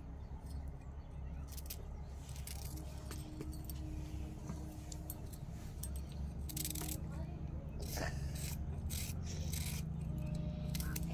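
Small knife slicing ivy gourds (kundru) held in the hand: an irregular scatter of short, crisp cuts, coming faster in the second half, over a steady low hum.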